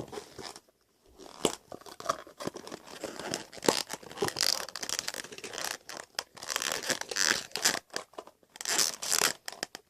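Small plastic containers and their snap-on caps being handled and pressed shut, with crinkling plastic and irregular clicks.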